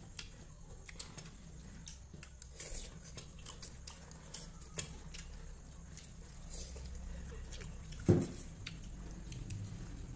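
Two people eating chow mein with forks: scattered light clicks of forks on plates and faint chewing. About eight seconds in comes one short, louder low thump.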